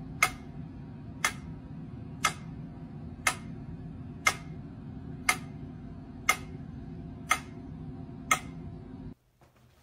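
Steady ticking: a sharp click about once a second, nine in all, over a low steady hum. Both stop abruptly about nine seconds in.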